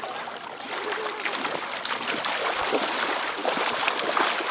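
Creek water splashing and sloshing around people standing in the stream, with a steady rush of water underneath and small splashes throughout.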